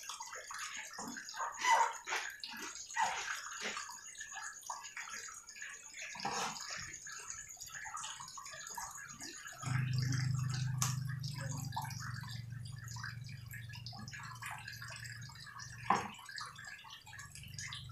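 Cleaver slicing and knocking on a chopping board as beef tongue is cut up, in irregular light knocks. A low steady hum comes in about ten seconds in and slowly fades.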